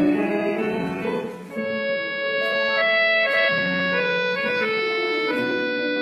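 Instrumental intro of a Thai song's karaoke backing track: a slow melody of long held notes over a steady accompaniment, with no voice yet.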